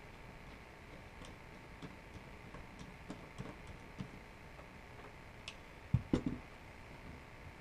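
Small clicks and light knocks from an AR-style rifle and its parts being handled on a workbench, with a short cluster of louder knocks about six seconds in as the rifle is laid down.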